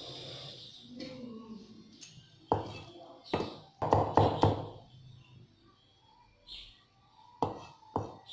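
Cleaver chopping peeled garlic cloves on a thick wooden chopping board: seven sharp knocks at uneven spacing, with three close together about four seconds in.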